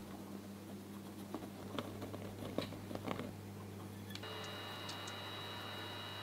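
Faint, scattered light ticks and taps of flour being sifted into a ceramic mixing bowl, over a steady low electrical hum. About four seconds in, a steady high-pitched whine starts and holds.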